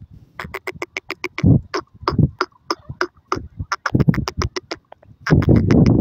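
Grey francolin calling: rapid runs of short, sharp, repeated notes, about seven a second, in several bursts with brief pauses between them. A low rumble joins near the end.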